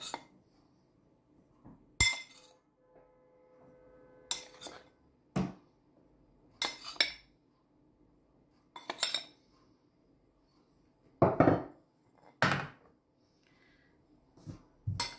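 A metal spoon scooping flour and knocking against a glass bowl and the food processor's stainless-steel bowl: about ten separate clinks and taps at irregular intervals, one about two seconds in leaving a ring that hangs for a couple of seconds.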